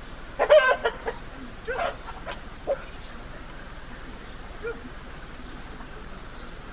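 Sharp animal cries in a scuffle between a cat and chickens: a quick burst of several loud calls about half a second in, a few more over the next two seconds, and one faint call near the five-second mark.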